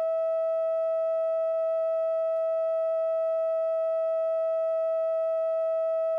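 Broadcast line-up tone on a news tape slate: a single steady mid-pitched tone held without a break.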